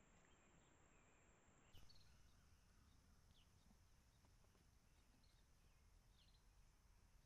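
Near silence: faint outdoor background hiss with a few faint, short bird chirps and a soft click about two seconds in.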